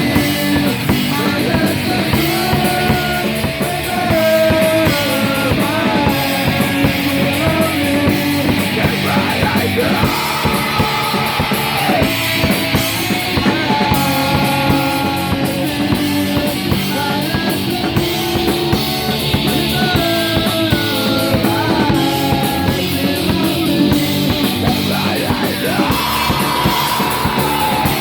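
Rock song with a full drum kit and a sung melody, playing steadily throughout.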